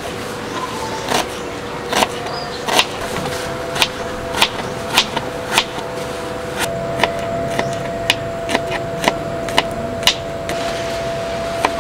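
Kitchen knife chopping red onion and then garlic on a cutting board: sharp knocks of the blade against the board, about one or two a second and unevenly spaced, over a steady hum.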